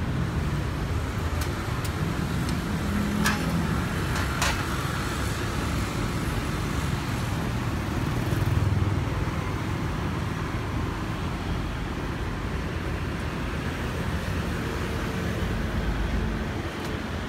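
Steady low mechanical rumble, like motor or road-traffic noise, with two sharp clicks about three and four and a half seconds in.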